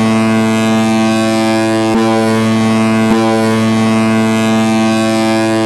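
Ice hockey arena goal horn sounding one long, steady, deep blast, signalling a goal.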